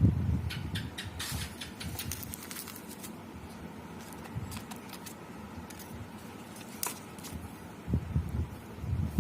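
Handling noise: a thump at the start, then a run of light clicks and rustles for a couple of seconds, a single sharp click later on, and two soft thumps near the end.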